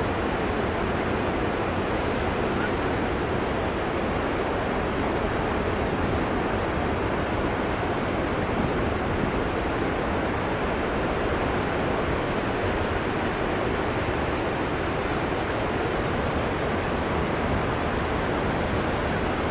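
Steady rush of breaking ocean surf, an even wash of whitewater with no single crash standing out.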